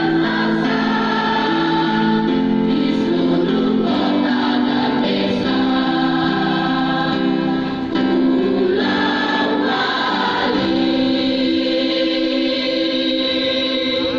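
A junior high school choir singing in several-part harmony, holding long notes and moving from chord to chord, with a short breath break about eight seconds in.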